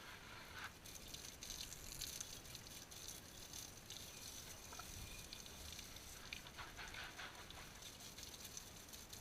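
Water spraying and splattering onto an engine during an engine wash, with irregular pattering and dripping crackles.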